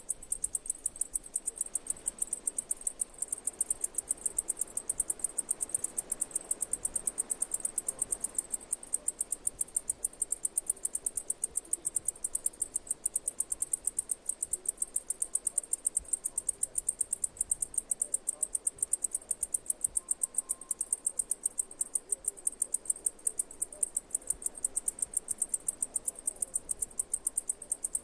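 Cicada chirping: a steady, unbroken train of short, high-pitched pulses, several a second, evenly spaced.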